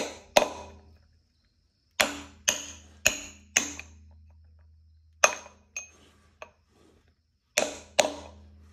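Steel hammer striking the head of a bolt used as a driver, tapping a pilot bushing into the end of an engine's crankshaft: sharp metallic clanks with a short ring. They come in bursts: two strikes, then four, then a few lighter taps, then two more near the end.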